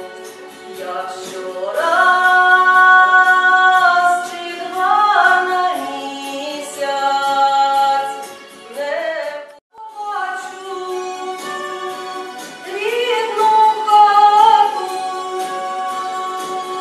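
A woman singing a song with long held notes, with a short break just under ten seconds in.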